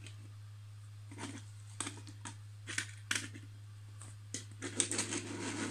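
Hornby model railway wagons set down and nudged along a wooden floor: scattered light clicks and knocks, thickening into a run of small rattling clicks near the end, over a steady low hum.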